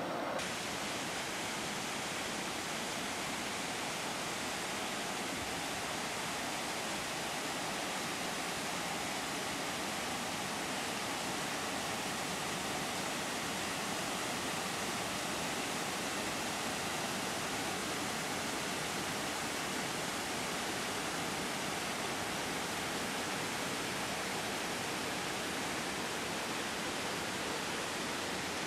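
Waterfall pouring over rock ledges: a steady, unbroken rush of white water.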